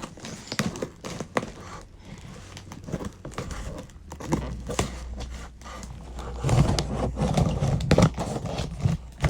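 Cardboard and paper packaging being cut open and handled: scattered clicks, taps and rustling, growing louder and busier in the last three seconds.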